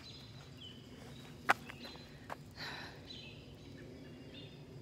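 Quiet rural outdoor ambience with faint distant birds chirping now and then. A single sharp click about a second and a half in stands out as the loudest sound, followed by a smaller click and a short hiss just before three seconds in.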